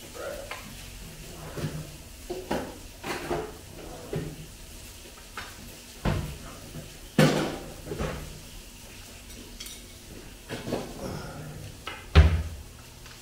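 Kitchen handling sounds: scattered knocks and clinks of things set down and moved on the counter, with a wall cupboard door banging shut near the end, the loudest sound.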